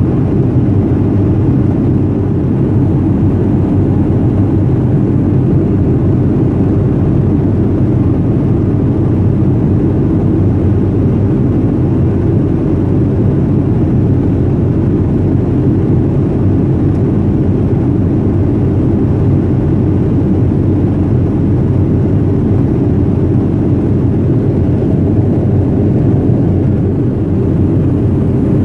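Steady low rumble of cabin noise inside a Boeing 737-300 on its approach descent: jet engine and airflow noise heard through the fuselage, unchanging throughout.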